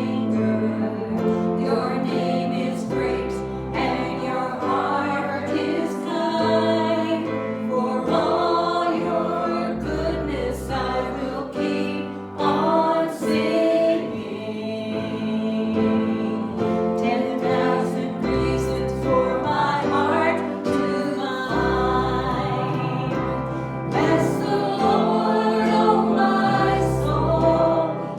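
Gospel worship song sung by a group of voices, with instrumental backing of held chords and a steady bass line.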